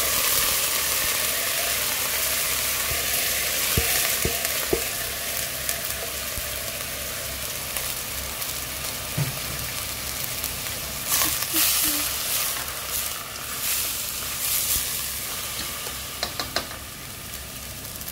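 Red onions in hot oil sizzling in a stainless steel pot as dry white rice is poured in and stirred, toasting the rice in the oil. The sizzle is strongest at first and slowly dies down, with a few short scraping clicks from the stirring.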